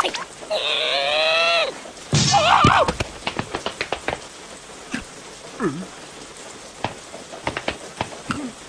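Squeaky wordless cartoon voices of the larva characters: a long wavering call about half a second in and another loud call a moment later, then a short falling call midway. Around them, raindrops drip and patter in scattered ticks.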